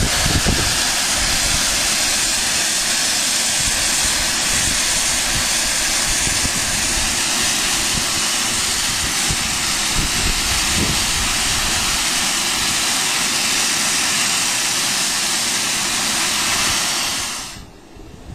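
Sentinel steam waggon boiler being blown down: a loud, steady hiss of steam and water blasting out of the blowdown valve at the base of the boiler under pressure. It cuts off suddenly about a second before the end as the valve is shut.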